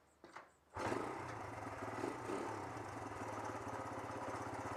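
A small engine running steadily with a fast, even pulse. It starts abruptly about a second in and cuts off suddenly near the end.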